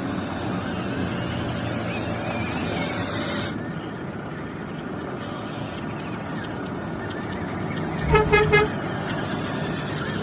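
Three quick toots of an RC model truck's horn about eight seconds in, over a steady rumble and hiss.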